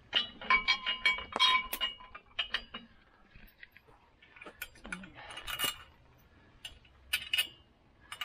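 Steel U-bolt and nuts of a canopy mounting clamp clinking and ringing against a tractor's roll bar as they are fitted by hand. A cluster of sharp metallic clinks comes in the first two seconds, and a few more come later.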